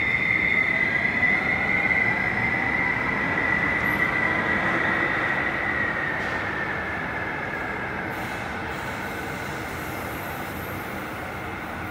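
Copenhagen Metro M3 driverless train pulling out of the station and accelerating away: a high whine with tones rising in pitch over the running rumble, the whole sound fading over several seconds.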